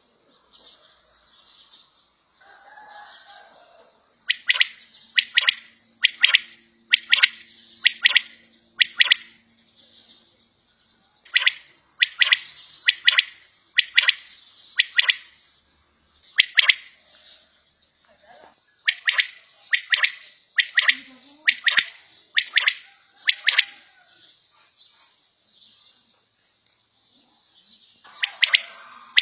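Quail (batair) calling: sharp, loud call notes repeated about one a second in runs of five to seven, with pauses of a few seconds between runs.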